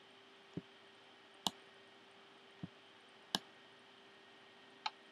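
Computer mouse button clicking five times, sharp single clicks about a second apart, as freehand brush strokes are drawn with click-and-drag, over a faint steady hum.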